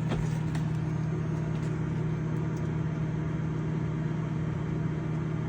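Microwave oven running with a steady low hum while it heats a bag of microwaveable pork rinds.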